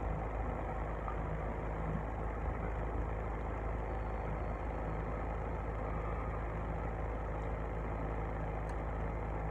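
Parked car's engine idling steadily, a low even hum heard from inside the cabin.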